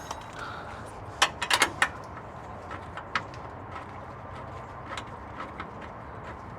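Light metal clicks and clinks from a ratcheting wrench working a loose exhaust flange bolt: a quick cluster of sharp clicks about a second in, then scattered faint ticks.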